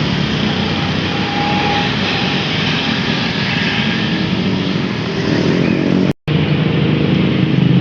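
Engine of a passing bus running, with road and traffic noise; the sound drops out completely for a moment about six seconds in.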